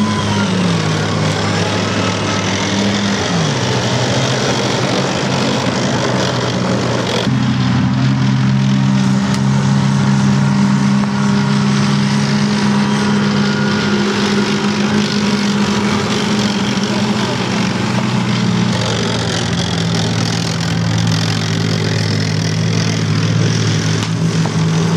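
Tracked CVR(T) Spartan FV103 armoured personnel carrier driving, its engine running steadily. The engine note drops in pitch twice in the first few seconds, then holds fairly even.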